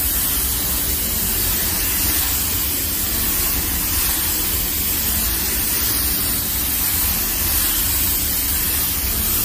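Steady hiss of a compressed-air paint spray gun, with a low rumble underneath.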